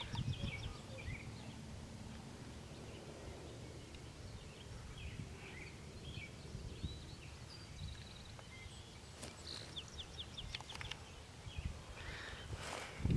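Small songbirds chirping and calling on and off, with a quick run of about six notes about nine and a half seconds in, over a steady low rumble.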